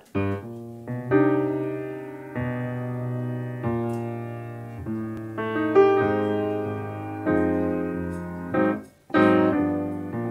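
Grand piano playing a solo introduction of struck chords, each left to ring and fade, about eight or nine of them. A brief pause comes a little before the end, then another chord.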